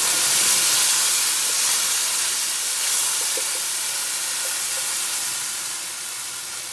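Blended pepper and tomato purée hissing and sizzling in hot olive oil with onions, the hiss slowly dying down as it settles, with a few faint ticks of a spoon stirring.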